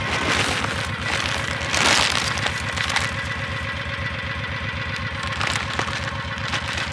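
Utility vehicle engine idling with a steady, even pulse, with short bursts of crackling noise at the start and about two seconds in.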